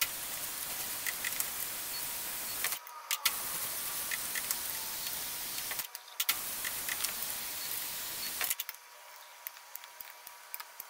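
Steady shop hiss with scattered light metallic clicks and taps as steel connecting rods and tools are handled. The hiss drops out briefly twice, and over the last couple of seconds it is quieter, with only occasional clicks.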